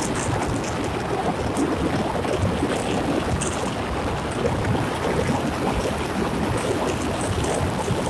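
Steady rush of wind and road noise from a moving car, with wind buffeting the microphone.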